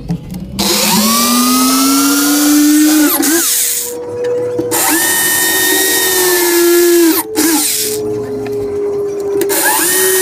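Corded electric drill boring bolt holes for hinges through the sheet-metal base of a steel drawer unit, run in about four bursts with short breaks. The motor's whine rises as it spins up, and a hiss is heard while the bit cuts the metal.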